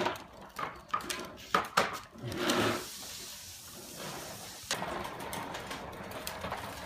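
Plastic wheels of children's ride-on toys rolling over stone patio pavers: a run of knocks and rattles, then a single sharp click, then a steady rolling rumble.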